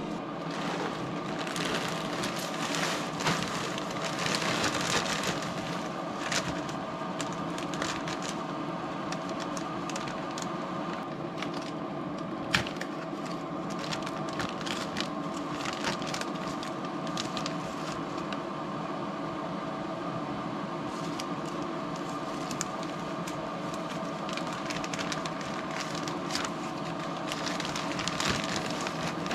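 Wood pellets poured into a pellet smoker grill's hopper, a dense clatter of many small hard pellets coming in spells. Under it the grill's fan hums steadily, still running on the shutdown cycle.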